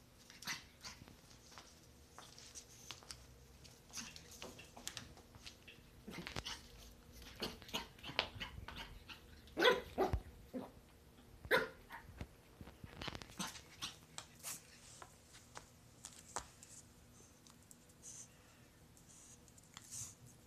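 A small puppy gives several short barks and yips, the loudest around the middle, among scattered light taps and clicks.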